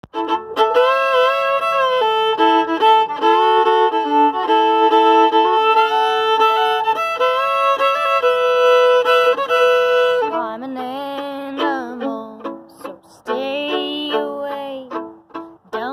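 Solo violin bowed as a song's introduction: a melody played two notes at a time for about ten seconds, then softer, lower phrases with sliding notes.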